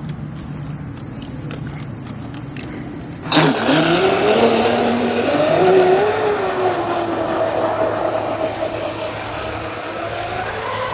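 Traxxas M41 RC race boat's brushless electric motor: a low hum with a few small clicks, then about three seconds in the boat takes off with a sudden loud whine that rises in pitch and wavers with the throttle over the hiss of water spray.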